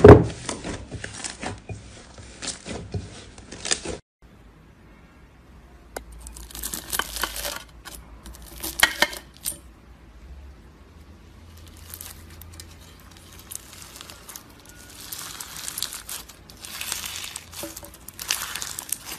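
Hands squishing slime, with wet clicking and sticky pops, the loudest a sharp pop at the start. After a short lull, a bumpy bead-textured slime is squeezed and pressed in repeated bursts of crackling.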